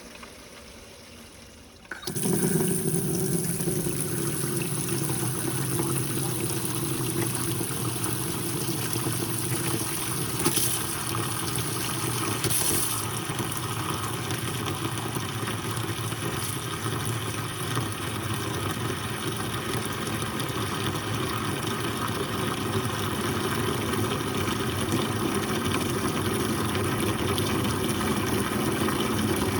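Shallow-well water pump running with water rushing from the tap, starting suddenly about two seconds in and then running steadily with a low hum. The pump is drawing air in through a cracked lift pipe, so the flow is a rough, murky rush mixed with air.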